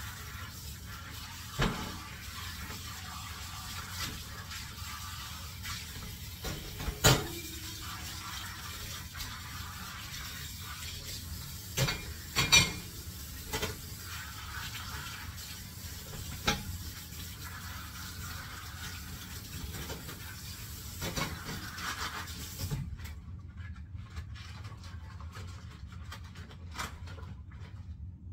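Hand-washing dishes under a running tap: a steady rush of water with sharp clinks and knocks of dishes every few seconds. The loudest clinks come near the middle. The water shuts off near the end.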